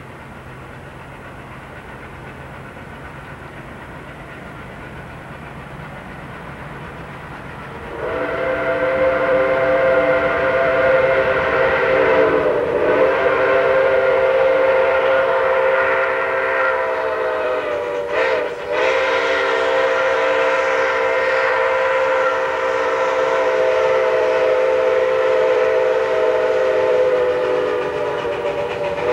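Chime steam whistle of OP&E No. 19, a Baldwin 2-8-2 steam locomotive, blown for a road crossing. It starts sharply about eight seconds in with several tones sounding together, and is held almost unbroken to the end, dipping briefly twice. Before it there is only a low steady rumble that slowly grows louder.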